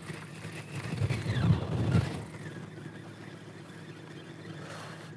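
A boat engine running with a low, steady drone. It grows louder for about a second between one and two seconds in.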